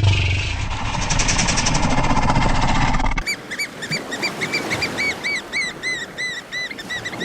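A rough, fluttering noise for about three seconds, then a cut to an animal's short chirping calls repeated about three times a second, each rising and falling in pitch.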